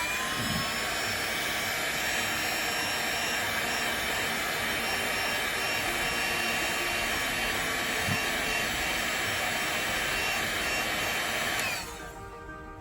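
Hot-air blower running steadily with a loud rush of air, warming the adhesive under a phone's ribbon cable to soften it. It cuts off near the end.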